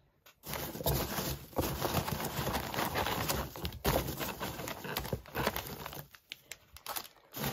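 A hand rummaging through packing peanuts in a cardboard box, making a dense, irregular rustling and crinkling that starts about half a second in and eases off about six seconds in. A cellophane-wrapped item is lifted out of the peanuts.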